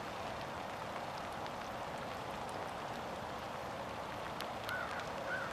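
Steady hiss of light rain falling, with two short high chirps near the end.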